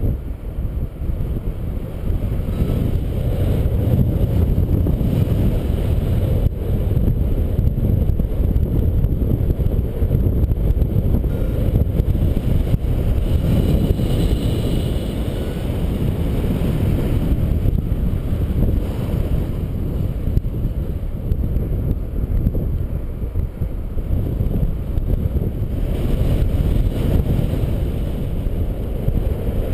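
Wind noise from the airflow of paraglider flight buffeting the camera's microphone: a loud, steady low rumble.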